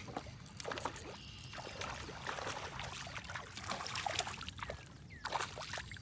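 Water splashing and dripping, with irregular clicks and knocks, as a just-hooked bass is landed.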